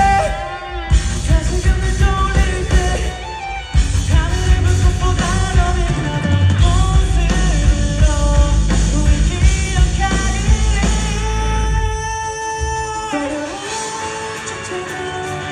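Live rock band playing with singing. About twelve seconds in the heavy low end drops out, leaving a quieter, thinner passage.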